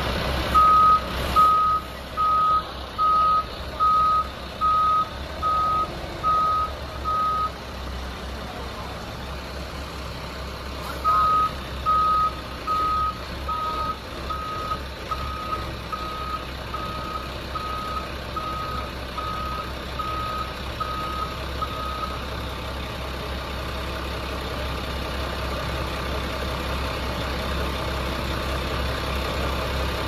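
Reversing alarm on a wheel-loader tyre handler beeping steadily, a little under twice a second, in two runs with a pause of a few seconds between them, over the loader's diesel engine running. The engine runs on alone after the beeping stops.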